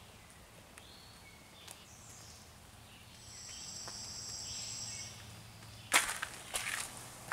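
Quiet woodland morning with faint scattered bird calls and a high, thin buzzing trill lasting about two seconds near the middle. About six seconds in comes a sharp knock followed by rustling and clicking, the loudest sound here.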